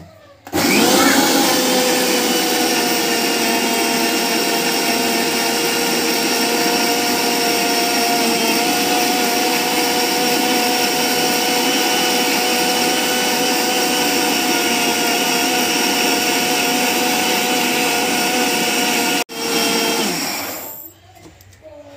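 Indian mixer grinder (mixie) running, grinding a wet coconut-onion-spice masala to a paste. The motor starts about half a second in and runs steadily with a constant whine, cuts out sharply near the end, then runs again for a second or two and winds down.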